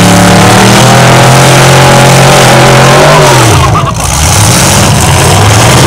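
Demolition derby cars' engines revving hard and very loud. One engine's pitch is held high, then falls away about three and a half seconds in, and engines rise again near the end.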